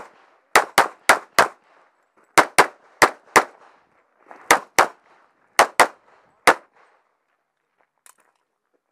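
Semi-automatic pistol firing a dozen or so single shots in quick strings of two to four, each shot separate rather than a runaway burst, over about six seconds.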